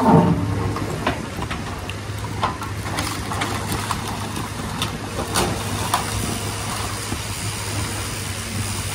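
Hydraulic excavator's diesel engine running steadily as its bucket digs into demolition debris, with wood and block clattering and knocking several times; the loudest crash comes right at the start.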